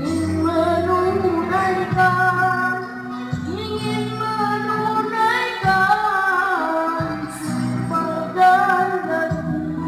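A boy singing a melody into a microphone over a recorded keyboard backing track, the accompaniment's low notes shifting every second or two.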